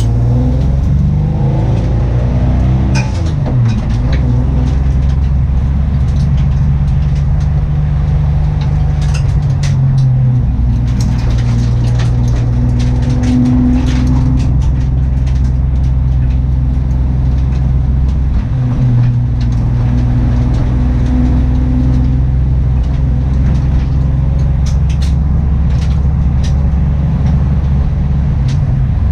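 Car engine running, its speed falling over the first few seconds and then holding steady, with brief unevenness now and then; the owner says the engine is misfiring.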